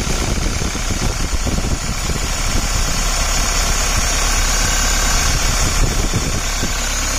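Toyota Hiace engine idling steadily with its turbocharger newly replaced.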